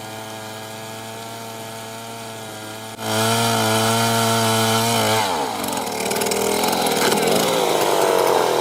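A powered wood-cutting machine running at a steady pitch, much louder from about three seconds in. About five seconds in its pitch drops as it comes under load, and rough cutting noise takes over.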